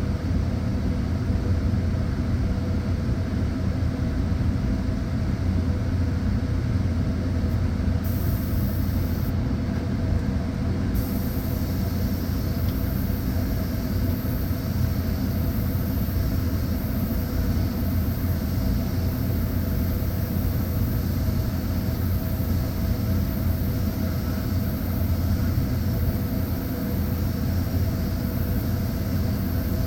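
Steady machine hum with a low drone. A high hiss like escaping air comes in briefly about eight seconds in, then again from about eleven seconds on and holds steady.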